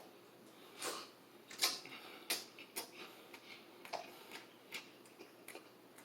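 Close-up eating sounds of someone chewing spicy rotisserie chicken: a series of short, wet smacks and clicks, roughly one to two a second.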